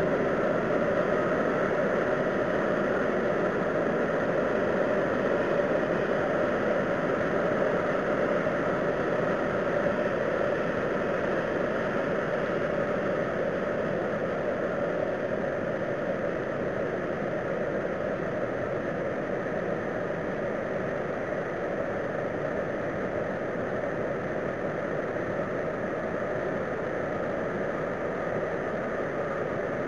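Steady rushing, rumbling drone with no separate bangs, easing off slightly in the second half; the recordist likens it to a train passing, though no railway is nearby, and presents it as an unexplained noise from the sky.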